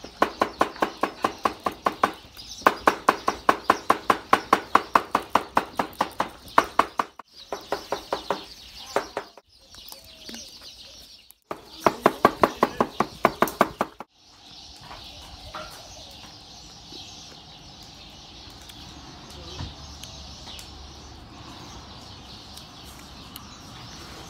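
A knife chopping fast on a wooden cutting board, about five strokes a second, in two runs of several seconds. After that there is only a steady high hiss.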